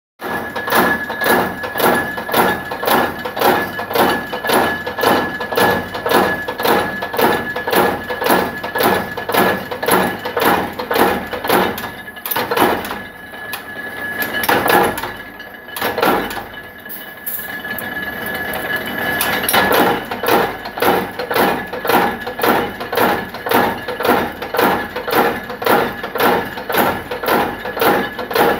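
Power press stamping external circlips out of steel strip, its die striking at about two strokes a second in a steady rhythm, with a steady high whine underneath. The rhythm breaks for a few seconds midway, then resumes.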